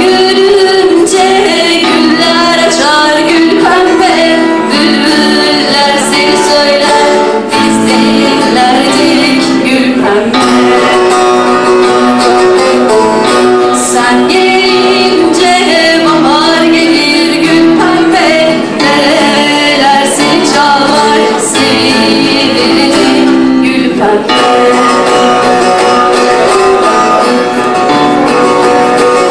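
Classical nylon-string guitar played through a microphone, with a voice singing a song over it.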